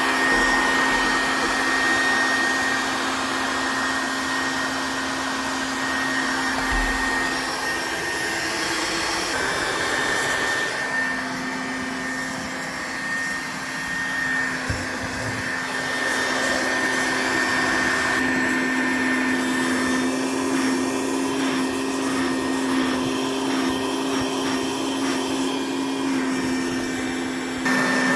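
Dirt Devil Handimate cordless handheld vacuum running steadily: a motor whine over rushing air. The upper hiss of the airflow dulls a few times, then comes back near the end.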